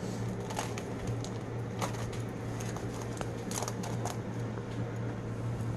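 Indoor room tone: a steady low hum, with scattered light clicks and rustles.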